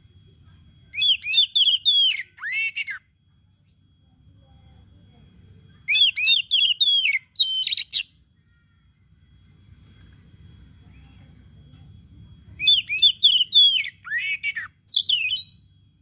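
Oriental magpie-robin (kacer) singing: three separate bursts of rapid, varied whistled notes, each lasting two to three seconds, with pauses of a few seconds between them.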